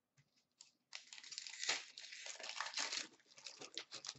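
A trading-card pack wrapper being torn open and crinkled by hand: a dense, crackly rustle that starts about a second in and runs about three seconds.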